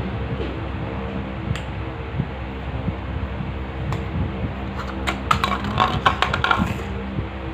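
A steady low hum, with a quick run of sharp light clicks and taps about five seconds in that lasts under two seconds.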